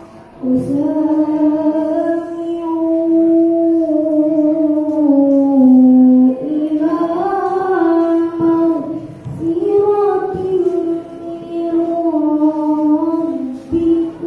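A boy reciting the Quran in the melodic tilawah style into a microphone. He holds long notes with ornamented glides and pauses briefly for breath near the end.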